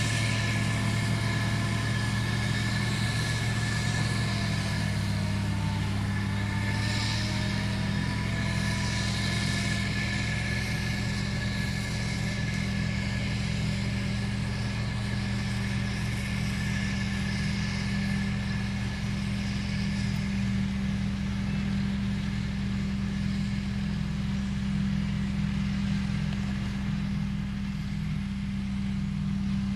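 Heavy diesel road-construction machine engine running steadily under load, with a constant high whine over it.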